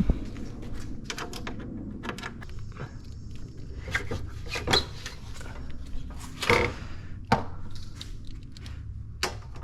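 Scattered clicks and knocks of tools and intake hardware being handled during an intake parts swap on a car, irregular and a few seconds apart, over a low steady background hum.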